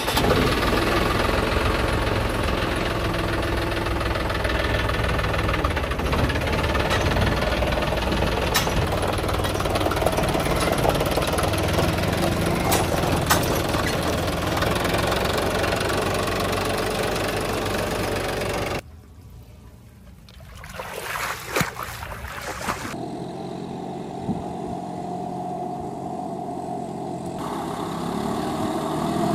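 John Deere 5050E tractor's three-cylinder diesel engine running loud and close as the tractor pulls away. About two-thirds through there is a sudden break, then a quieter tractor engine working in mud, its pitch rising near the end as it revs.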